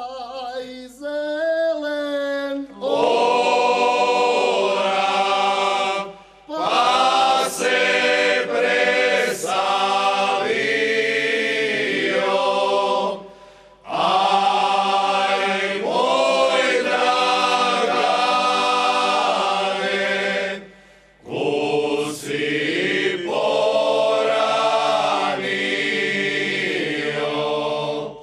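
Male folk choir singing traditional Slavonian songs unaccompanied. A single voice opens, the group joins in about three seconds in, and the song goes on in long held phrases with short breaks between them.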